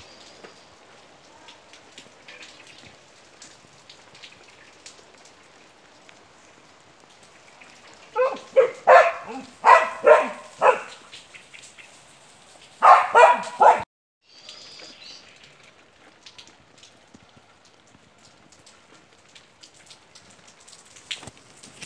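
A dog barking in two runs, about seven barks some eight seconds in and four more about thirteen seconds in, over a light steady patter of rain. The sound cuts out for a moment just after the second run.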